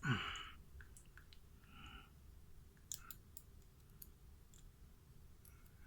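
Faint, scattered metallic clicks and light taps, with one brief ring, as a quick-set clone lock's cylinder is tapped to knock loose a stuck pin during disassembly.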